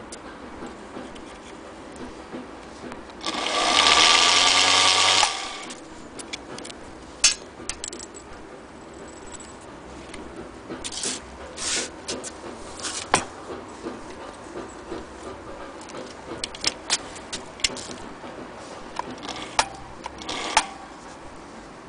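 Singer Featherweight 221 sewing machine running for about two seconds, about three seconds in, then a scatter of sharp clicks and knocks as the machine is handled.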